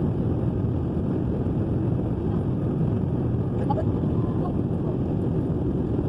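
Steady rumble of an airliner's engines and airflow heard inside the passenger cabin.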